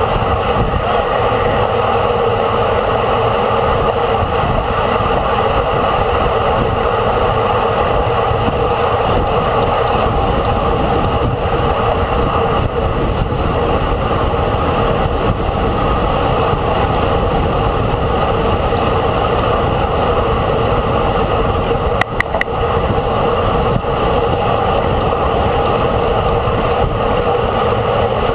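Steady rushing wind and road noise of riding at speed in a road bicycle race, heard on a moving microphone, with a brief cluster of clicks about 22 seconds in.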